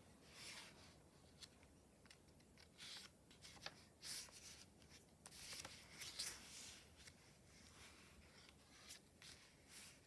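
Faint rustling and flapping of the paper pages of a small handmade envelope-paper notebook as they are turned, coming irregularly several times, with a few light taps and clicks of paper.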